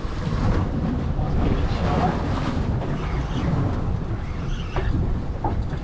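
Strong wind buffeting the microphone on a small offshore fishing boat, a steady low rumble, with the sea around the hull.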